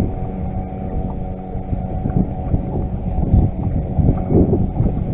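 Bass boat's electric trolling motor humming steadily, with gusty wind buffeting the microphone.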